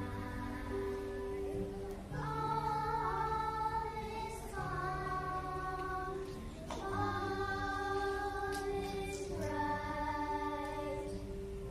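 A group of young girls singing a Christmas carol together in long held notes, phrase after phrase with short breaks between, over steady low accompaniment notes.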